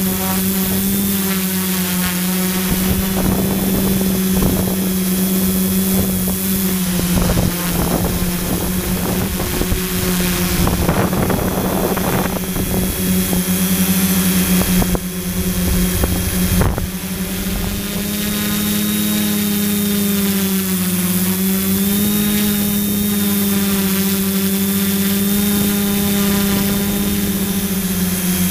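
Quadcopter drone's motors and propellers humming steadily, the pitch wavering slightly. Wind buffets the microphone between about seven and seventeen seconds in.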